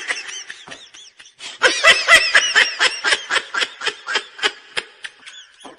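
A person laughing hard in a quick run of high-pitched 'ha' bursts, about four a second. The laughter is quieter at first, strongest through the middle, and trails off near the end.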